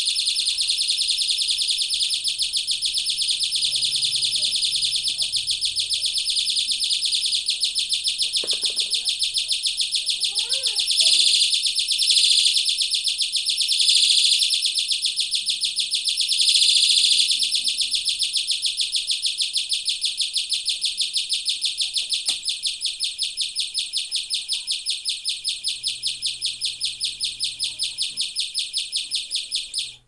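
Two-555-timer bird sound generator circuit chirping through a small loudspeaker: a fast, even train of high-pitched electronic chirps, several a second. It swells louder a few times midway and cuts off abruptly right at the end.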